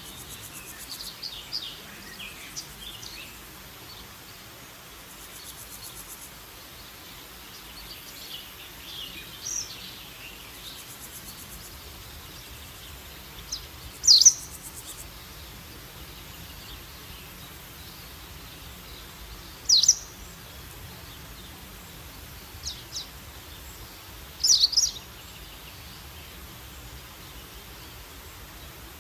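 Woodland birds singing over a steady background hiss: scattered high twittering and chirps in the first few seconds, then three loud, sharp calls that sweep down in pitch, spread through the second half.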